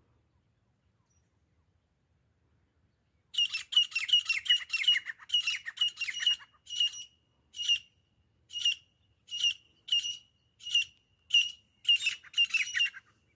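Grey francolin calling: a loud series of repeated call notes starting about three seconds in. The notes come quickly at first, slow to a steady one call every second or less, then quicken again near the end.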